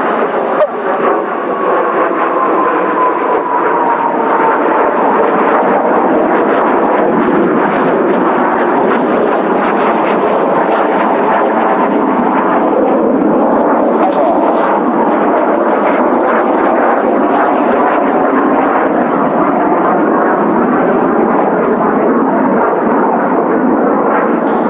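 Kawasaki T-4 jet trainers of the Blue Impulse team flying over, their turbofan engine noise loud and continuous. A whine falls in pitch over the first few seconds as a jet passes.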